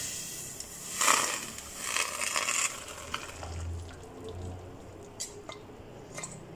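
Hot cooking water and instant noodles poured from a stainless steel pot into a stainless steel colander, splashing and draining through the holes. The pour is loudest about a second in and tails off to a trickle, with a couple of light clicks near the end.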